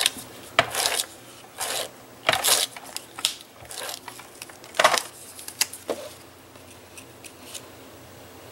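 ATG adhesive tape gun laying double-sided tape on a cardstock mat: a series of short rasping strokes over the first six seconds or so, followed by quieter handling of the cardstock.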